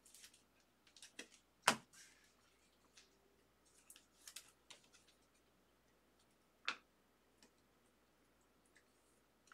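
Trading cards being handled and slid into rigid clear plastic top loaders: soft scraping rustles and scattered light clicks of plastic, with two sharper clicks, one about two seconds in and one near seven seconds.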